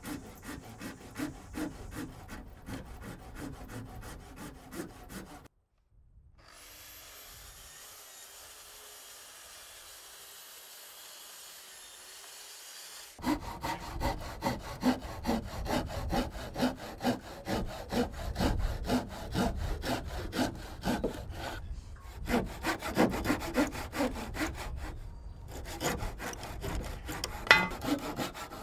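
Japanese pull saw cutting through timber decking boards to trim them flush, a run of quick, even rasping strokes. The sawing stops for several seconds about a fifth of the way in, then starts again louder and carries on.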